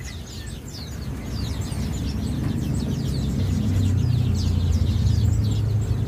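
Many caged songbirds chirping at once, a steady scatter of short quick chirps, over a low hum that grows louder from about a second in.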